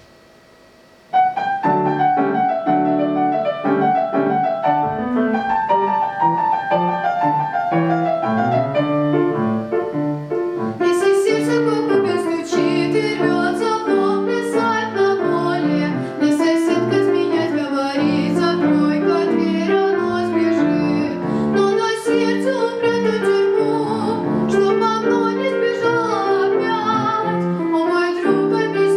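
Vocal recital with piano: after a second of near silence a piano introduction begins, and a solo singing voice joins the piano about a third of the way in.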